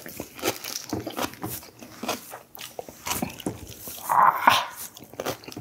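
Close-up chewing of a mouthful of radish, many short wet clicks and crunches a second. About four seconds in comes a brief whining sound.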